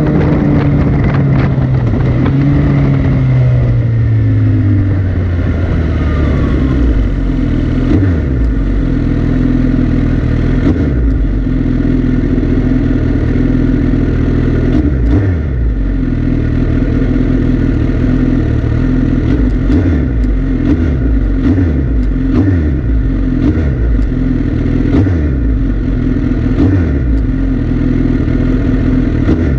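Motorcycle engine running while being ridden; its note falls over the first few seconds as the bike slows, then holds steady at cruising speed, with scattered clicks and rattles over the top.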